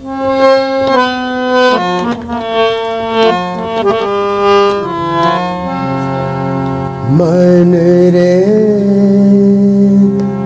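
Harmonium playing an interlude of short stepwise melody notes, then held chords. About seven seconds in, a man's voice slides up into a long, wavering sung note over the harmonium.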